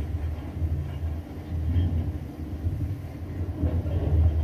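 Steady low vehicle rumble, played back through a television's speakers.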